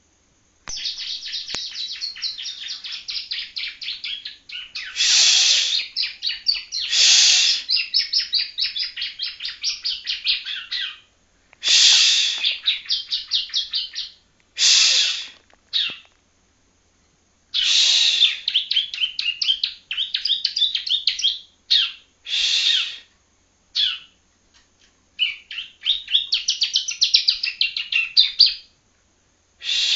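Young yellow-bellied prinia practising its song: long runs of rapid, rattling high notes in phrases of a few seconds, broken by short pauses, the unfinished song of a juvenile still learning to sing.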